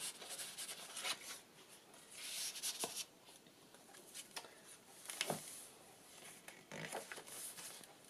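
Faint rustling of paper and card as pages of a handmade journal are turned and card tags are slid in and out of pockets, with a few soft taps of card against the page.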